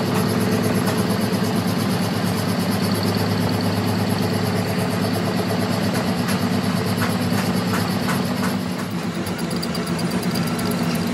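Metal lathe running under load, its tool cutting a large steel excavator bucket pin: a steady machine hum with the hiss of the cut.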